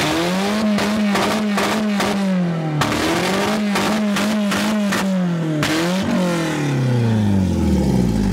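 A 1995 Acura Integra's four-cylinder engine being revved hard, heard from inside the cabin. Three times it climbs, holds high with sharp crackling clicks, then drops. Near the end the revs fall steadily away to a low rumble.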